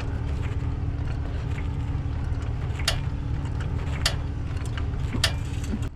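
Steady low rumble of an idling truck engine, with three sharp metallic clicks about a second apart in the second half from a jack being pumped to lift the truck's axle.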